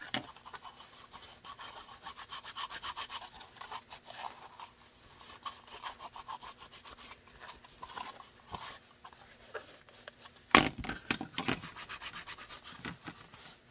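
Cloth towel rubbing quickly back and forth over a plastic holster, wiping off the cleaner just sprayed on it. One louder sudden knock comes about ten and a half seconds in.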